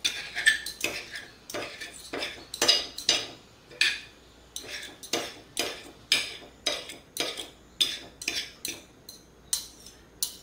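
Metal cutlery striking and scraping against a plate again and again, about two sharp clinks a second with a short ringing after each, as a plate of fried eggs is cut into and eaten.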